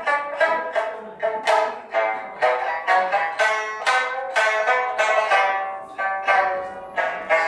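Background music: plucked string notes in a quick, even run, about three to four notes a second, each one sharp at the start and then fading.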